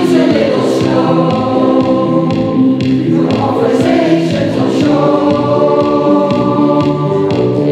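Mixed choir of men's and women's voices singing together in harmony, holding sustained chords that shift every second or so.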